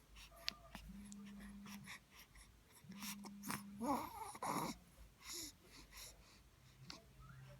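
Baby yawning: about four seconds in, a short rising squeak of voice runs into a breathy rush of air, amid soft breathing and small mouth clicks. A low steady hum comes and goes three times in the first half.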